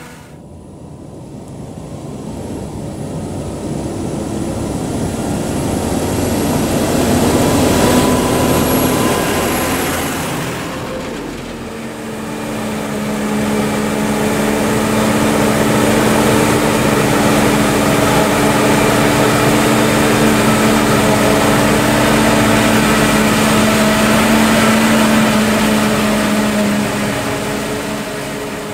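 Tractor engine drawing near across a field, growing louder and then easing off. Then a Claas Jaguar 870 forage harvester chopping maize alongside a New Holland tractor and trailer, a steady heavy machine drone with a held, pitched hum.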